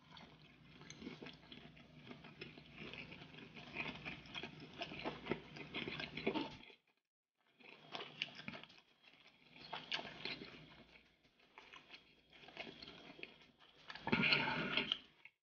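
Close-miked chewing of lobster tail meat: wet smacks and small mouth clicks, steady for several seconds, then a short pause and further bouts of chewing, the loudest near the end.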